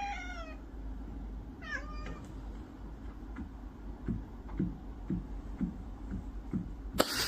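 A kitten mewing: two short, high calls that fall in pitch, the second about two seconds in, then faint tapping and a louder sound right at the end.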